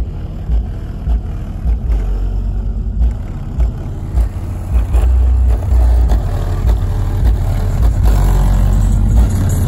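Two Sundown E-hybrid 15-inch subwoofers in a ported box tuned to about 37 Hz, playing bass-heavy music loud. The deep bass comes in repeated pulsing hits.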